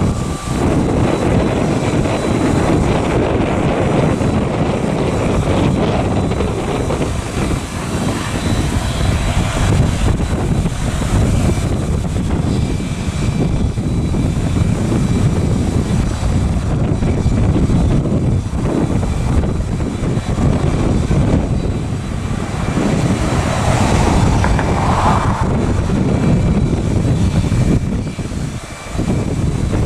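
Airplane engine noise from a nearby aircraft, loud and steady, dipping briefly near the end.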